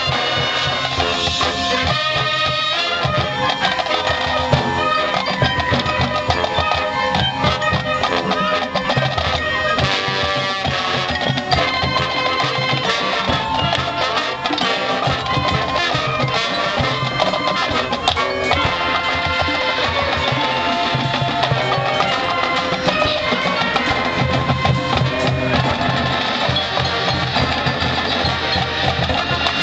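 High school marching band playing its field show: brass with drums and percussion, continuous and loud.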